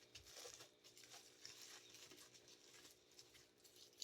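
Faint crinkling and rustling of plastic sleeve and bubble-wrap packaging being handled, with scattered soft clicks over a faint steady hum.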